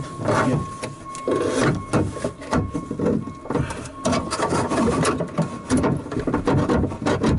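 Irregular clicking, knocking and scraping of metal and plastic parts as a door latch and lock actuator assembly is worked into place inside a car door.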